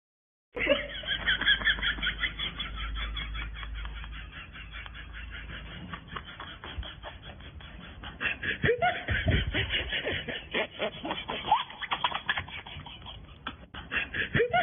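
Laughter in rapid, repeated bursts.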